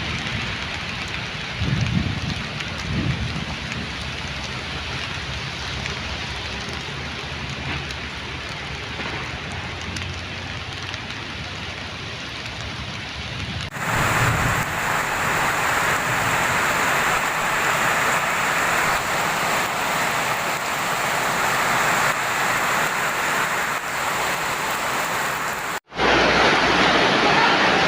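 Heavy rain pouring down in a windstorm, with low gusts surging now and then. About halfway the sound switches abruptly to a brighter, louder hiss of rain, and it drops out for a moment near the end.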